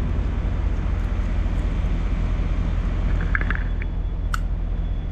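Steady low drone of an idling diesel engine, with a few faint clicks about three and a half and four seconds in.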